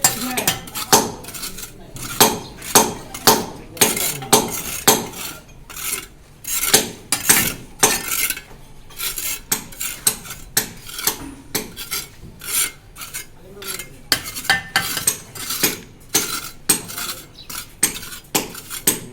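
Metal trowel scraping and tapping mortar in quick repeated strokes, about two a second with short pauses, as a brick partition wall is laid.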